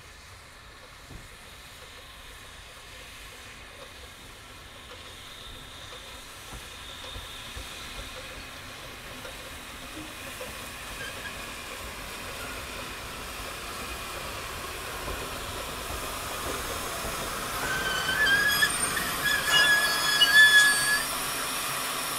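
Narrow-gauge Garratt steam locomotive No. 87 drifting in with its train, hissing steam and growing louder as it approaches. From about 18 seconds in, loud high-pitched metallic squealing comes and goes for about three seconds as the locomotive and coaches roll past.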